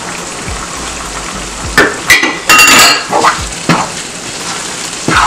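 A spatula stirring a thick stew in a frying pan, scraping and knocking against the pan, with a cluster of clinks and short metallic rings about two seconds in and single scrapes after. A steady sizzle runs underneath.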